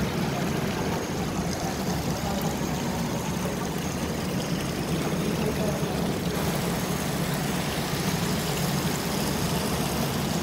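Steady low hum and noise of running machinery, continuous and even throughout.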